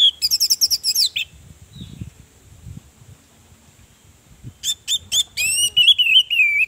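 Orange-headed thrush singing: a quick burst of high, varied notes at the start, a pause of about three seconds, then a run of sharp notes and a wavering whistle that slides down near the end.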